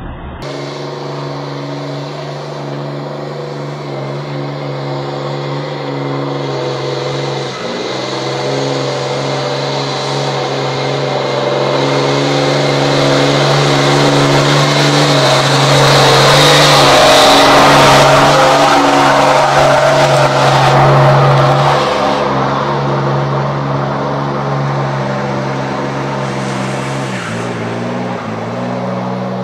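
Heavy truck diesel engine working hard under load in deep mud, holding a steady low note that grows louder to a peak about eighteen seconds in, with a rising hiss of tyres churning mud, then easing off. Near the end the engine note shifts lower.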